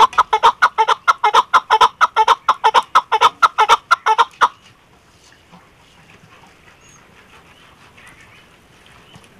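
Chukar partridge calling: a fast, even series of loud chuck notes, about five a second, that stops abruptly about four and a half seconds in.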